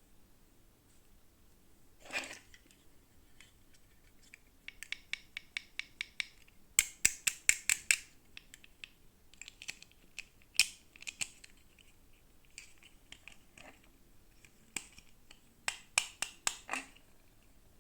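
Plastic toy packaging being handled and opened by hand: quick runs of small sharp clicks and snips, loudest in a cluster about seven to eight seconds in and again near the end.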